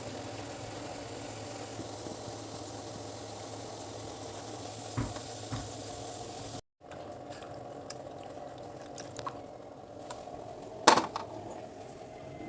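A pot of rasam (chaaru) bubbling steadily on the stove, with a few clinks of a utensil against the pot and one louder knock near the end.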